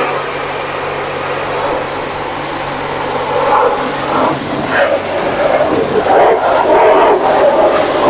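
High-pressure car-wash spray drumming on the body of a Zastava 101, heard from inside the cabin: a loud steady hiss that swells and eases as the jet moves over the car, with a faint low hum underneath.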